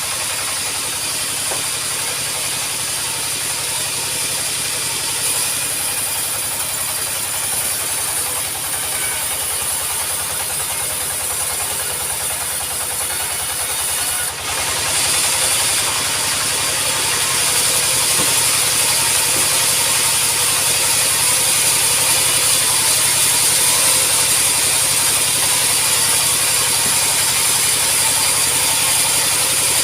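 Sawmill saw running and cutting through an acacia log, a steady loud mechanical whine with hiss; it dips briefly about halfway through, then runs louder.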